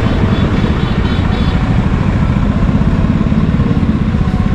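Motorcycle engine running steadily at low speed while riding slowly in traffic, heard from the rider's seat.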